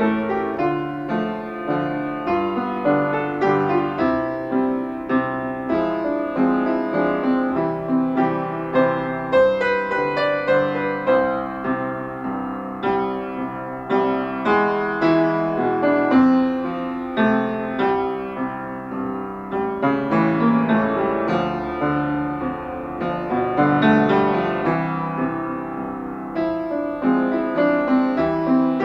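Solo piano music: a flowing piece of many overlapping notes played without pause.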